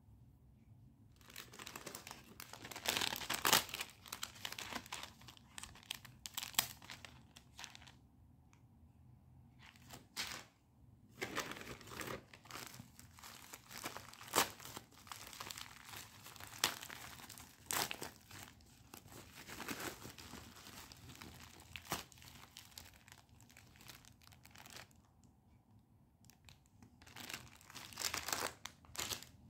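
Jewellery packaging crinkling in irregular bursts as it is handled and opened, with short quiet gaps.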